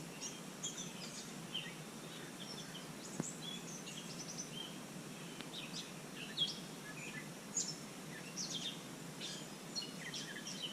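Small birds chirping and twittering in quick, scattered calls over a steady low background hum, with one faint tick about three seconds in.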